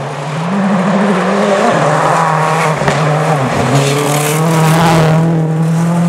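A rally car's engine, flat out on a gravel stage, closes in and passes, its revs rising and dropping several times through gear changes and lifts before holding steady. There is a hiss of gravel spray about four to five seconds in as the car slides through the corner.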